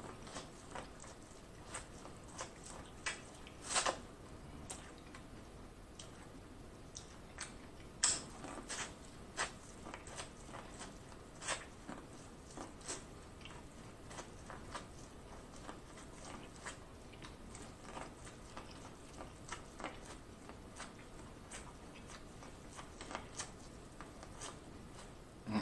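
Corn on the cob being bitten and chewed: the kernels crunch and pop in short, irregular clicks, with louder bites about four and eight seconds in.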